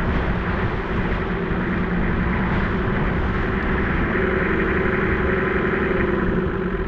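A four-wheel-drive vehicle driving along a dirt track: its engine drones steadily under an even rush of road noise.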